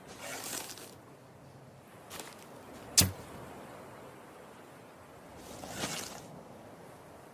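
Crossbow sound effect: a swish, a small click, then a single sharp, loud snap about three seconds in, followed by another swish near six seconds.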